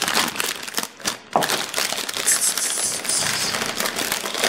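Clear plastic packaging crinkling and crackling as it is turned and squeezed in the hands.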